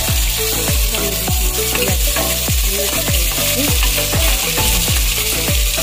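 Sliced onions frying and sizzling in hot oil in an aluminium pot, stirred with a steel ladle. Background music with a steady beat plays throughout.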